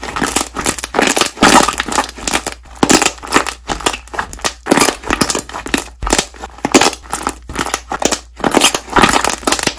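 Slime being squeezed and pressed by hand, the air bubbles trapped in it popping and crackling in quick, irregular bursts.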